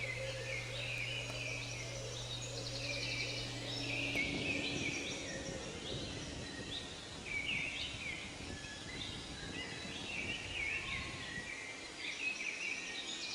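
Several songbirds singing and chirping continuously. A steady low hum runs underneath and stops about four seconds in, after which there is low rustling noise.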